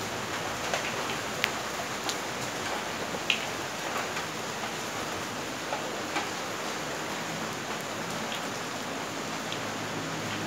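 Steady rain falling, with single drops tapping sharply here and there, the loudest a little past three seconds in.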